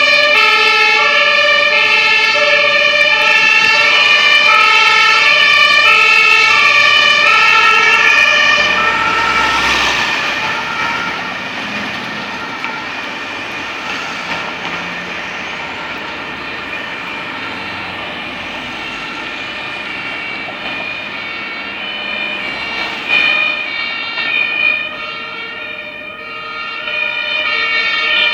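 Two-tone sirens (Martinshorn) of German fire engines, alternating between a high and a low note. A vehicle rushes past about ten seconds in, and then the sirens fade into street traffic noise. A siren grows loud again near the end.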